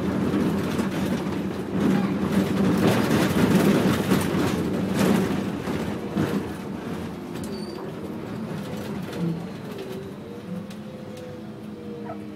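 Inside a city bus on the move: the engine is running loud under load with rattling from the cabin. After about halfway it grows quieter, and near the end a whine slowly falls in pitch.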